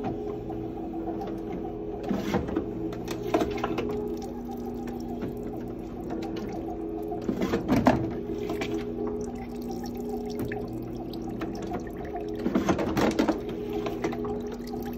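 Zummo Z06N automatic citrus juicer running with a steady motor hum, broken by a round of clatter about every five seconds as a lemon drops in, is cut and squeezed, and its peels are thrown out. Juice trickles into the jug below.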